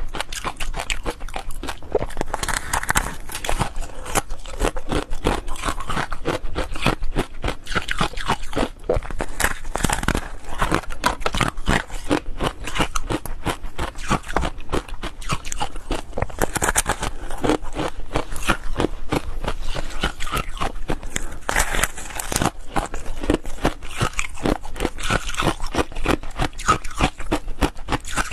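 Close-miked crunching and chewing of frozen foam ice: a steady run of crisp crackles and clicks as the icy block is bitten and ground between the teeth.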